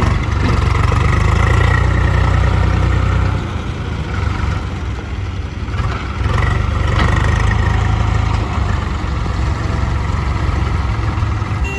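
Heavy diesel engine running loud with a deep rumble. It swells louder twice, for about the first three seconds and again from about six seconds in, and drops back in between.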